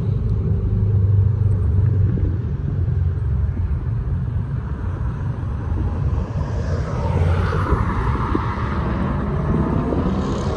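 Motor vehicle engine idling with a low, steady rumble. Another vehicle passes about seven to nine seconds in.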